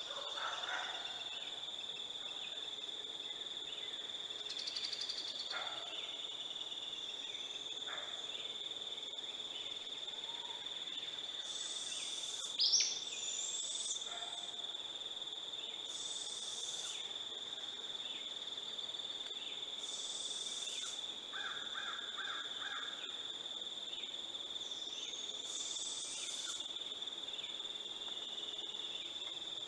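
A steady, high-pitched insect drone in summer woodland, with birds singing short high phrases every few seconds. One louder, sharp rising call comes about 13 seconds in.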